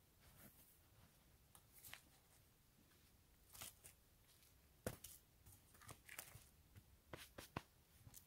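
Faint footsteps crunching through snow, one sharp crunch about every second at an uneven pace.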